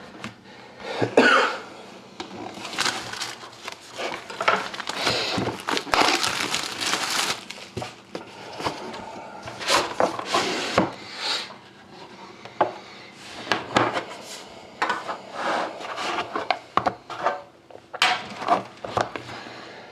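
Hands handling a sealed trading-card box and its packaging: irregular rustling, scraping and sharp clicks and taps of cardboard and wrap.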